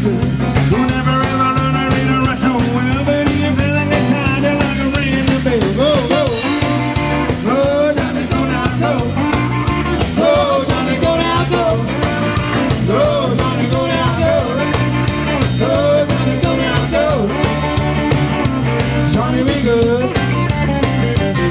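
Live band playing an upbeat number: saxophone and keyboard over a steady upright-bass line and drum kit, the melody full of sliding, bending notes.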